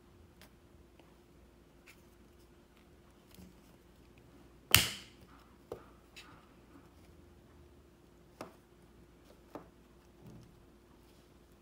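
Handling noise from hands prying at the plastic shell of a Relx Nano disposable vape pod: sparse small clicks and taps, with one sharp, loud click about five seconds in and a few smaller ones after it.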